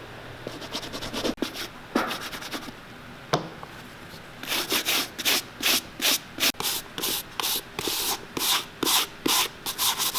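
Hand buffing of a leather shoe: short scattered rubbing strokes and a sharp click at first, then an even run of quick brisk strokes at about three a second as the cream and wax finish is worked in.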